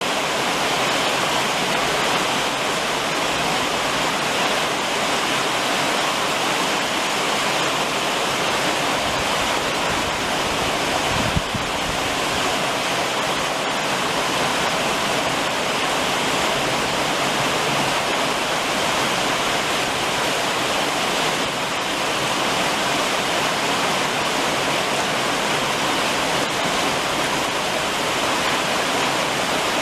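Steady summer rain falling on a roof, with one brief knock about eleven seconds in.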